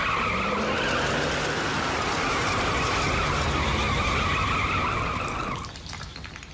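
Cartoon pickup truck's tyres screeching in a long, steady skid under hard braking, over a low rumble; the screech stops suddenly about five and a half seconds in.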